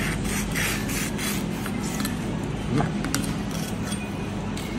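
Large knife scraping and cutting against a wet plastic cutting board: several short scraping strokes in the first second, then a few sharp clicks, over a steady low hum.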